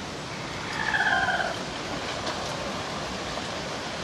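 A rooster crowing once, a drawn-out call of about a second that falls slightly in pitch, over a steady background hiss.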